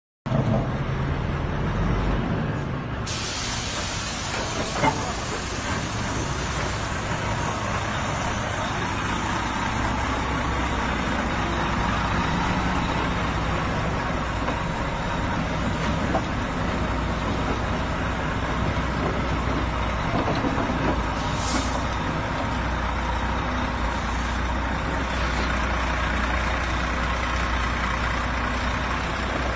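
Articulated lorry's diesel engine running steadily at low speed as it creeps through a tight turn, with a constant hiss over it and a short sharp hiss of air about two-thirds of the way in.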